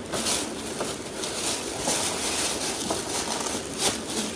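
Thin black plastic bag rustling and crinkling steadily as hands rummage through it, with a few sharper crackles.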